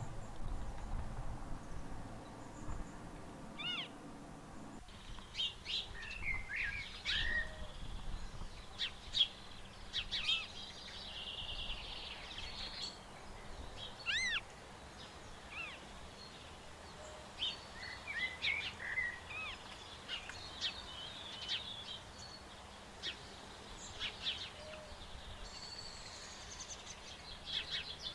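Bird calls: repeated high, arching mewing calls of marsh harriers, among short chirps and song of other birds. A low background noise cuts out abruptly about five seconds in.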